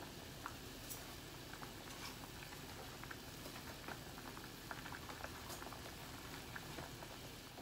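Chicken and glass-noodle soup at a rolling boil in a wide steel pan: a steady low bubbling hiss dotted with many small pops.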